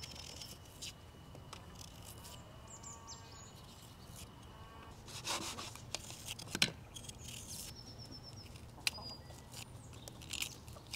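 Small kitchen knife peeling and trimming an onion by hand: scattered crisp scrapes and crackles of onion skin being cut and pulled away, with a few sharper ones from about halfway on. Birds chirp faintly in the background.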